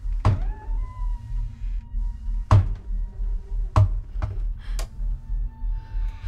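Horror-film sound design: a low, pulsing drone runs under five sharp knocks with echoing tails. The loudest knocks come about two and a half and nearly four seconds in, and a faint rising tone follows the first knock.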